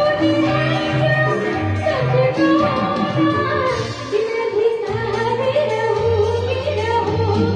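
A woman singing a song over instrumental accompaniment, with a melody that bends and wavers above held bass notes.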